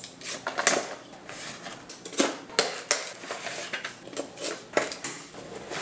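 Utility knife slitting the plastic shrink-wrap on cardboard boxes: irregular sharp clicks and short scraping crackles as the blade cuts and the film tears.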